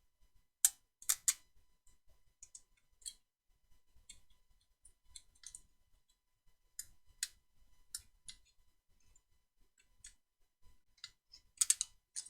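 Steel tape-measure blade being cut and handled with snips: irregular sharp clicks and snips, loudest in a cluster about a second in and again near the end.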